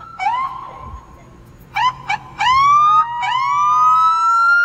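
Police car sirens giving a string of short rising whoops, several in quick succession, then longer rising wails that climb toward the end.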